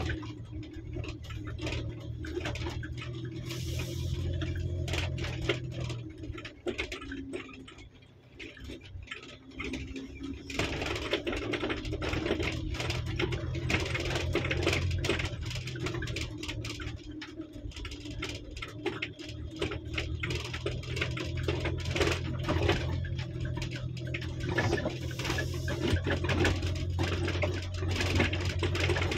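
Car driving on a gravel dirt track, heard from inside the cabin: a low engine hum under a constant crackle and rattle of stones under the tyres. It goes quieter for a few seconds about seven seconds in, then picks up again.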